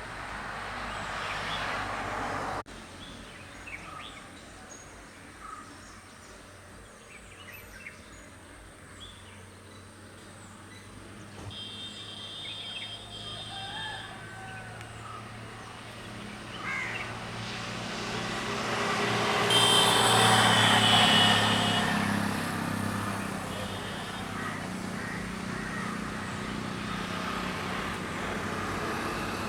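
Outdoor ambience of scattered bird chirps and calls over a steady background hum. A road vehicle passes, its noise building to a peak about two-thirds of the way through and then fading.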